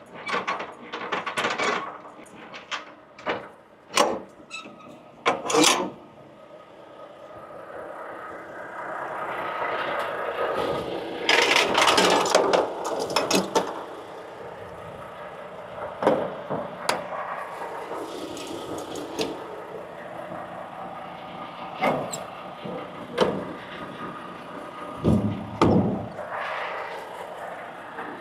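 Metal clanks and knocks from hooking a tractor-trailer up to a trailer: handling the air-line couplings and gear at the trailer's front and on the tractor's catwalk, over the truck's steady running. A louder rushing sound lasts a couple of seconds about eleven seconds in, and a low thump comes near the end.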